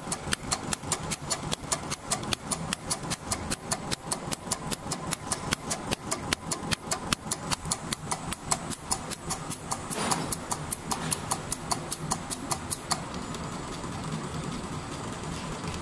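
Richpeace automatic pattern sewing machine stitching a zigzag seam: a regular clicking, about five a second, over a steady machine hum. Near the end the clicking stops and only the hum goes on.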